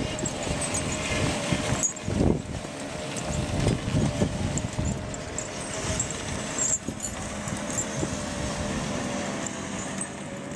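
Ford 9N tractor running under load as it pushes deep snow with a rear box blade: a steady, slightly wavering hum from the drivetrain over irregular crunching and rumbling of packed snow.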